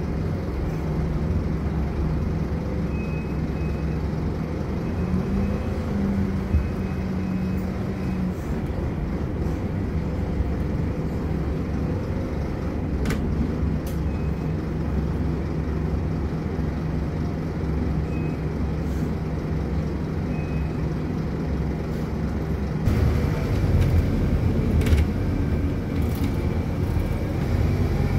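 Steady engine and road rumble heard from inside a moving bus, with a low engine hum, growing louder and noisier near the end with a few knocks.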